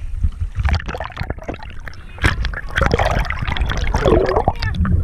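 Sea water splashing and gurgling around the camera as swimmers move at the surface, with bubbly gurgling as it goes under; irregular splashes throughout.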